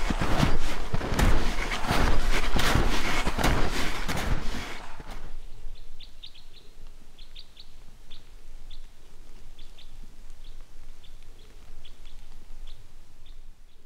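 Footsteps crunching loudly through snow for about the first five seconds. Then it goes quiet, with a small bird's short high chirps repeating now and then.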